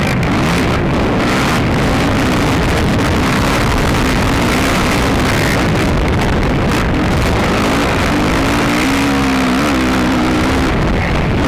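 Racing ATV engine running hard, heard from on board. Its note rises and falls with the throttle and is clearest near the end, over a constant loud rush of wind and noise.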